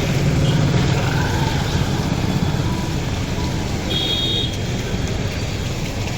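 Road traffic in heavy rain: a steady rushing noise of rain and passing vehicles, with a brief high tone about four seconds in.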